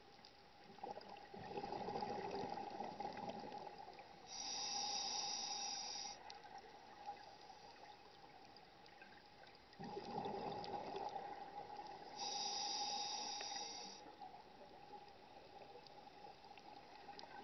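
Scuba diver breathing through a regulator underwater: a gurgling rush of exhaled bubbles, then the hiss of an inhalation through the demand valve, twice over, with a third hiss starting near the end. A faint steady hum runs underneath.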